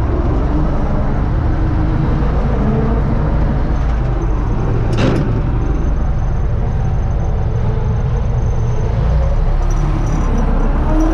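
Universal U650 tractor's four-cylinder diesel engine running steadily, heard from inside the cab. One sharp click about five seconds in.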